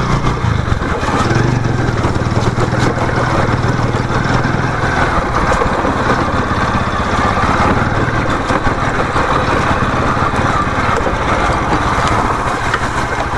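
Motorcycle engine running steadily while being ridden off-road.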